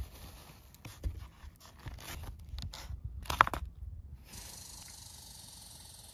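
Scraping and clicking as cooked lamb chops are handled on a wire grill rack and moved onto a paper plate, with one louder scrape about three and a half seconds in. A steady soft hiss then takes over.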